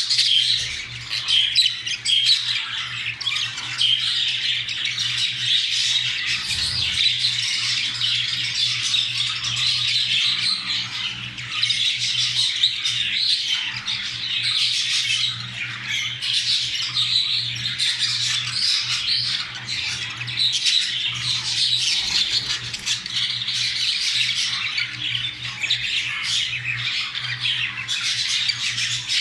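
Budgerigars chattering and warbling nonstop in fast, scratchy runs, the kind of chatter a pair makes when mating, over a steady low hum.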